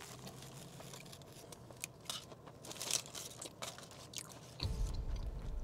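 A person chewing a mouthful of cooked cabbage close to a clip-on microphone: faint scattered mouth clicks and smacks, with a low rumble coming in near the end.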